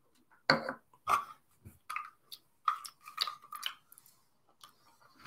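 Soft handling noises from small objects being picked up and put down on a desk: a scatter of light knocks and rustles, the two loudest about half a second and a second in.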